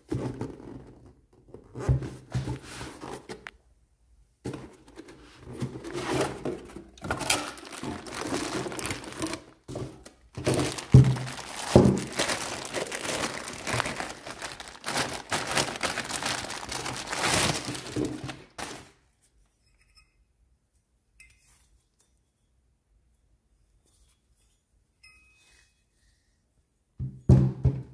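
Unboxing handling noise: a cardboard box handled and opened, with thunks and knocks, then the plastic wrapping of a steel differential output flange crinkled and torn off. The crinkling stops about two-thirds of the way through, and a couple of knocks come near the end.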